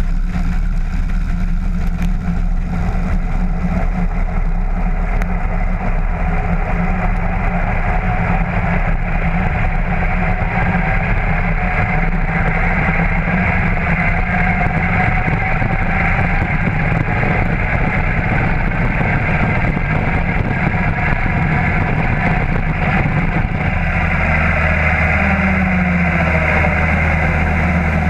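Cessna 152's four-cylinder Lycoming engine and propeller running at full takeoff power during the ground roll on a grass strip, the engine note rising slowly as speed builds. About 24 seconds in, the low rumble turns into a steadier drone as the plane lifts off.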